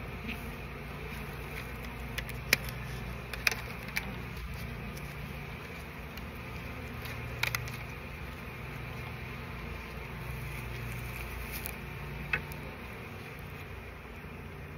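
Honey bee colony buzzing in a steady hum, with about six sharp clicks spread through it.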